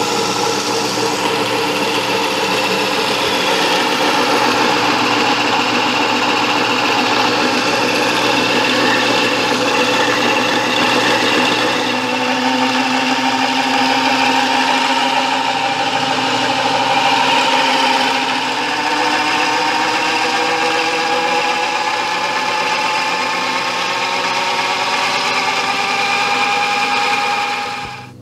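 Electric motor and friction drive of a 1918 Jas. Clark friction-drive drill press running steadily with a many-toned mechanical whine. About twelve seconds in, the pitches begin to slide slowly upward as the drive is adjusted at its handwheel. The sound cuts off near the end.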